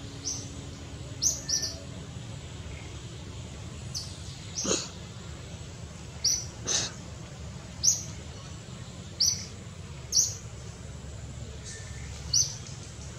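A small bird chirping: about ten short, high chirps at irregular intervals over a steady low background hum.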